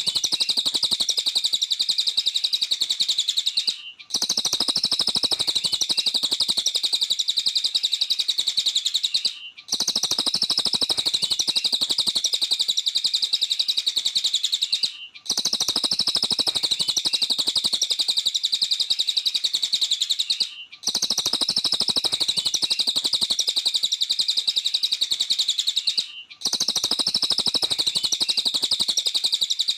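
A cililin bird singing in full song: a dense, very rapid, high-pitched chattering twitter in long unbroken runs of about five seconds, each cut by a short pause.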